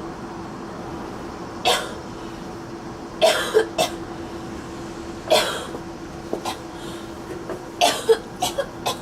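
A woman retching with nausea: short, harsh dry heaves that come singly and in clusters, with a quick run of several near the end.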